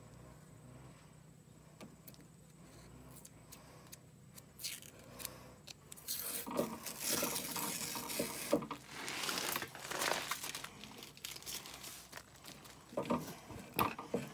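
Blue masking tape being peeled off a freshly painted mower-deck pulley, tearing and crinkling. The sound is loudest from about six to ten seconds in, with a few sharper handling knocks near the end.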